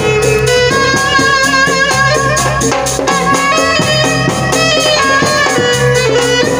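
Music with drums keeping a steady beat under a wavering melody line.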